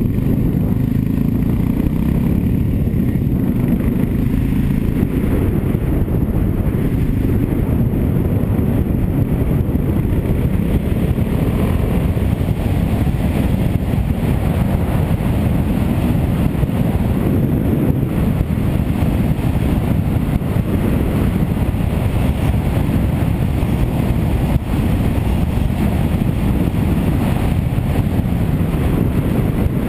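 Suzuki DR800's big single-cylinder engine running steadily as the motorcycle cruises along a road, heard from an onboard camera.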